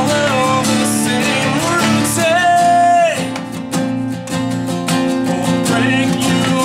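Acoustic guitars strummed by a band playing live, over a sung melody that ends in a long held note falling away about three seconds in. The guitars carry on alone after that.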